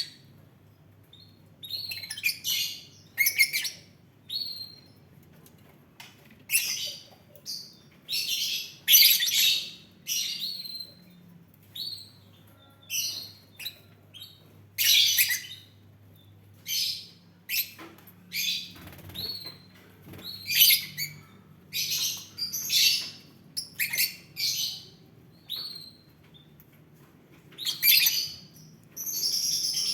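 Lovebirds calling: shrill, high chirps and squawks in short, irregular calls, roughly one a second, some coming in quick pairs or runs.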